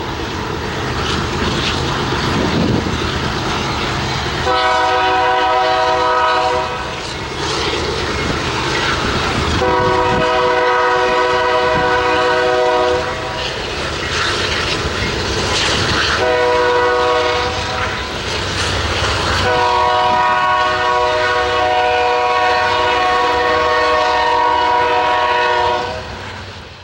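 Freight locomotive's multi-tone air horn sounding four blasts, long, long, short, long, the standard grade-crossing warning, the last blast held longest. Under and between the blasts runs the noise of the train's wheels on the rails as the cars pass.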